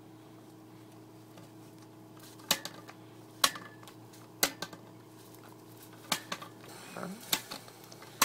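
Sharp knocks, roughly one a second, as a blue-and-gold macaw bites and shoves a broom handle with its beak, over a faint steady hum.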